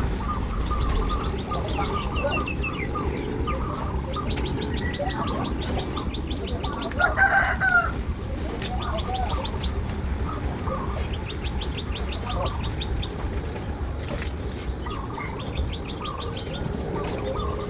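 Backyard chickens clucking, with a rooster crowing once about seven seconds in, over repeated fast high-pitched trills.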